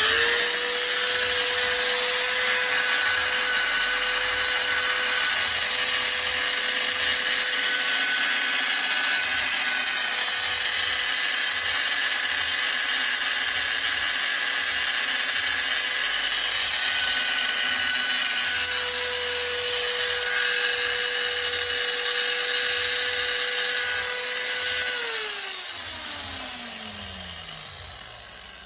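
Bosch electric angle grinder, without a disc, switched on and running free at full speed with a steady high whine. About 25 seconds in it is switched off and spins down, the whine falling in pitch and fading.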